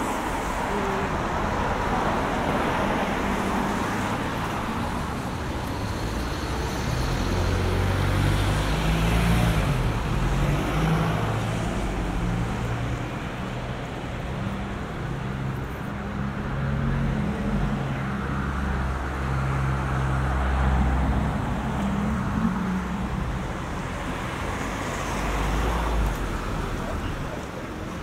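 Road traffic on a wet city street: a steady hiss of tyres on wet tarmac, with a vehicle engine running low and heaviest through the middle stretch.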